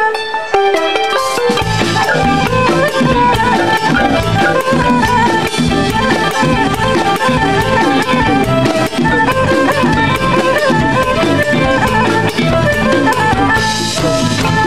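Music with a drum beat and a melodic lead line; the drums come in about a second in.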